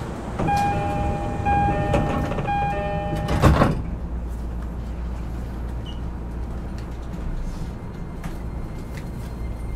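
E231-series train's door-closing chime, repeated three times, then the sliding doors thud shut about three and a half seconds in. Afterwards there is a steady low hum inside the car.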